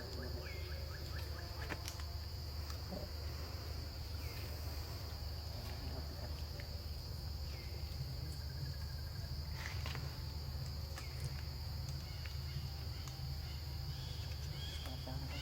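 A steady, even, high-pitched drone of insects, with a few short high calls and light clicks over it.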